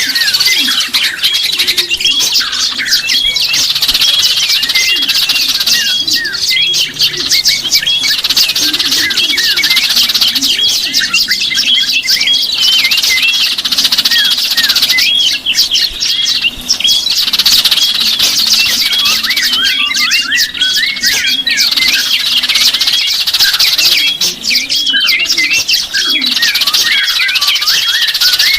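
Many small birds chirping and twittering at once: a dense, unbroken chorus of short, quick high-pitched calls overlapping one another.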